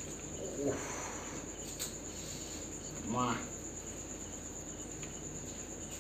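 Crickets chirping in a steady, high-pitched trill.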